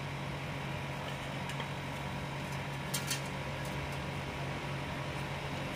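A steady low mechanical hum, with a couple of light clicks about three seconds in.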